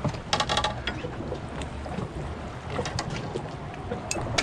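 Clicks and knocks of a conventional fishing reel and tackle being handled in a small skiff, over steady wind on the microphone. A dense flurry of clicks comes about half a second in, followed by a few scattered knocks.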